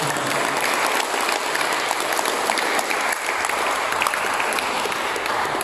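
Audience applauding: many hands clapping in a dense, steady patter, greeting a speaker called to the stage.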